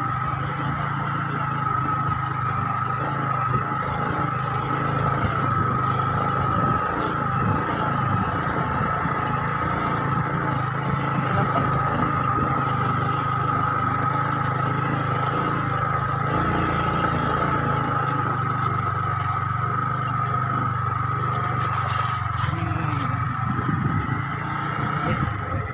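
Yamaha motorcycle engine running steadily under way, with a constant high-pitched whine alongside it.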